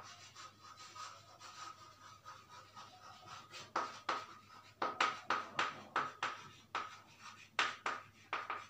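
Chalk writing on a blackboard: a run of short scratching strokes and taps, faint at first and louder and more regular from about four seconds in.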